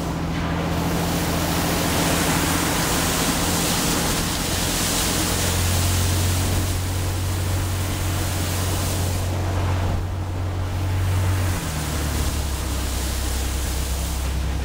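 Vehicle driving through deep floodwater: water spraying and rushing along its side, heard from the cab. Under the spray runs a steady low engine drone that drops in pitch near the end.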